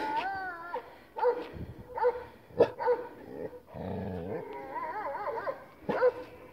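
Shepherd dog barking several times in short calls, with higher wavering whining calls at the start and around five seconds in.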